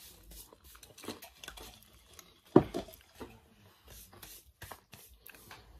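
Eating noises close to the microphone: chewing, with small clicks and rustles of food being handled, and one sudden louder thump about two and a half seconds in.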